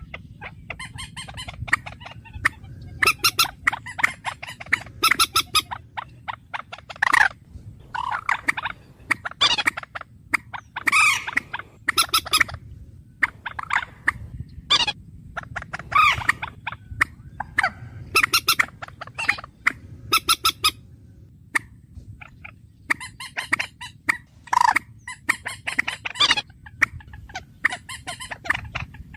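A bird calling over and over, in bouts of short pitched notes, some run together into rapid trains, with brief pauses between bouts. A steady low hum lies underneath.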